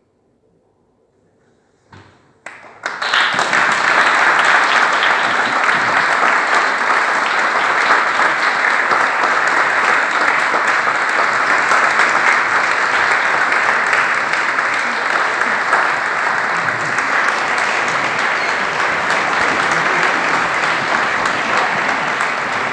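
Audience applauding: about two seconds of near silence, then a few scattered claps that swell into steady applause.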